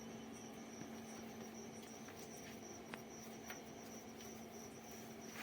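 Insects, likely crickets, chirping in a steady high pulsing trill over a steady low hum, with a few faint clicks.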